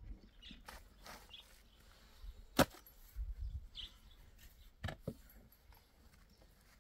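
Scattered sharp knocks of a long-handled shovel working wet mud in a wheelbarrow: one loud knock about two and a half seconds in, then two more close together about five seconds in.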